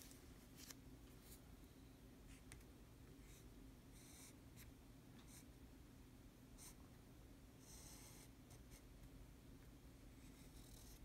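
Fountain pen nib scratching across paper while large characters are written: faint, short scratches, one per stroke, with pauses between them, over a low steady hum.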